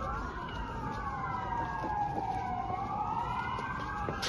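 Several sirens wailing at once, their pitches sliding slowly up and down and crossing over each other.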